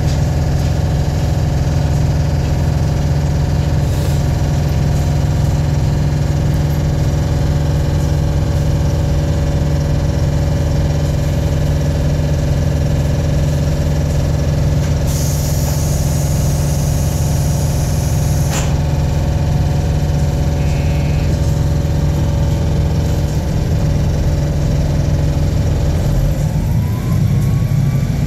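KiHa 48 diesel railcar's engine running steadily, heard from inside the passenger car. About halfway through, a hiss lasts a few seconds and stops with a clunk. Near the end the engine note changes and a whine rises in pitch.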